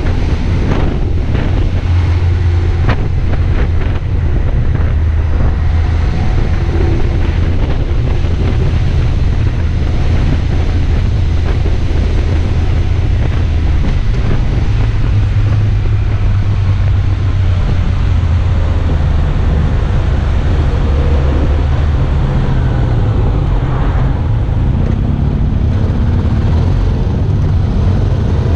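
Motorcycle engine running at road speed, heard from an onboard camera with heavy wind noise on the microphone. The engine note rises and falls a little in the second half as the throttle changes.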